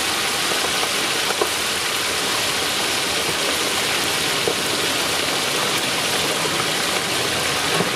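Hot oil sizzling and bubbling steadily in a large iron kadai as chicken pieces deep-fry, a steady hiss like rain, with a couple of faint clicks.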